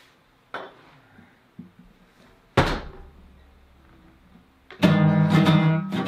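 A few soft knocks and one heavy thump about two and a half seconds in. Near the end, loud strumming on an acoustic guitar starts.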